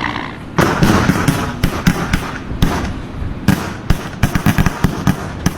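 A rapid, irregular series of sharp cracks and pops, several a second, beginning about half a second in.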